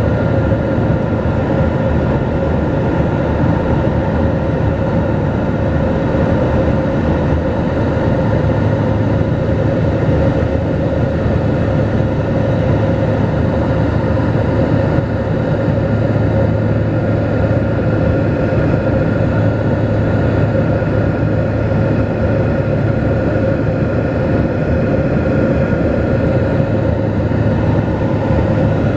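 Cabin noise of a Dornier 228 twin-turboprop commuter plane, its turboprop engines running steadily. It is a constant drone with a steady whine over a low rumble.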